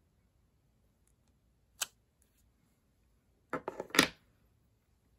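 Clear acrylic stamping block being handled on a craft desk: a single click about two seconds in, then a quick run of knocks and rustles near four seconds as the block is lifted off the card and put down.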